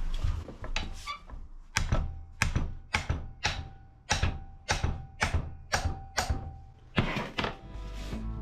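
Sharp metallic knocks on a large adjustable wrench fitted on a hydraulic tilt cylinder's rod nut, about two a second, nine in all, each with a brief ring. They are struck to break the nut loose.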